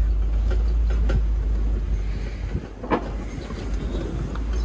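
Open-sided safari truck driving along, a steady low rumble with faint rattles and one sharper knock just under three seconds in.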